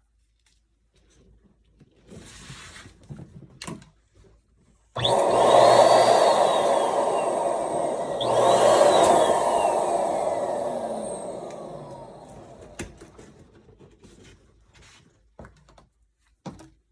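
Electric balloon inflator switched on in two short blasts about three seconds apart, its motor whine falling as it spins down after each. Before it, quiet rubbing and handling of latex balloons.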